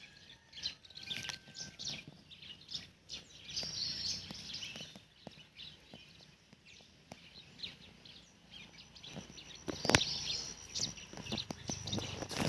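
Birds chirping in short calls, with a sharp knock about ten seconds in.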